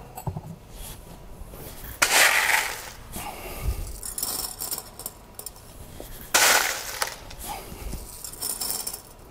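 Loose column packing poured by hand into the upper section of a still's distillation column, rattling and clinking as it falls in. There are two main pours, about two and six seconds in, with lighter clinks between them.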